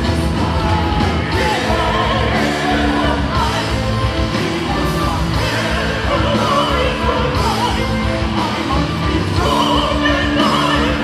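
Symphonic metal band playing live, with a singer's voice over the band.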